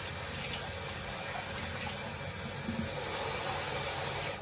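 Kitchen tap running steadily into a saucepan of new potatoes as they are washed, a continuous hiss of water that cuts off suddenly at the end when the tap is turned off.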